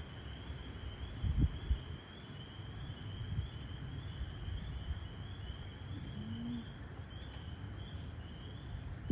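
Outdoor rural background: a steady, evenly repeated high chirping runs over a low rumble. A couple of dull thumps come about a second and a half in.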